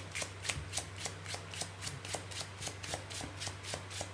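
A deck of playing cards being shuffled by hand: an even run of light card flicks, about three or four a second.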